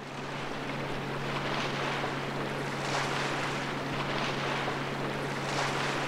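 Steady low drone of an inland cargo barge's diesel engine carrying across a river, under a rushing of wind and lapping water that swells now and then.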